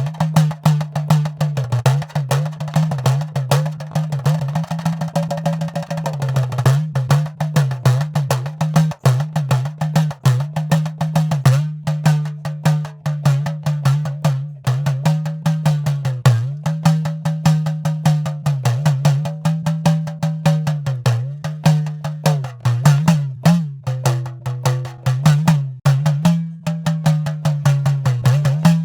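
Idakka, the Kerala hourglass drum, played in fast continuous stick strokes at about 100 beats a minute. Its pitch bends down and back up repeatedly as the player squeezes the lacing.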